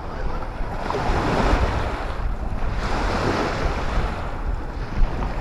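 Sea waves washing onto the shore in two swells, with wind rumbling on the microphone.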